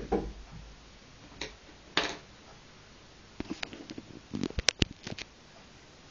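Small knocks and clicks of objects being handled: a knock at the start, two single taps about a second and a half and two seconds in, then a quick run of sharp clicks and taps lasting about two seconds.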